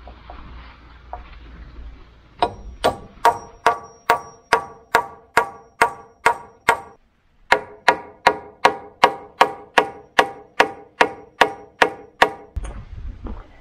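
Hammer driving nails into timber framing beams: a steady run of strikes, about three a second, a short pause about seven seconds in, then a second run.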